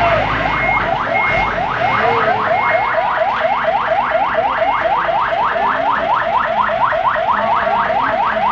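Fire engine's electronic siren in fast yelp mode: quick rising whoops, about six a second, repeating without a break.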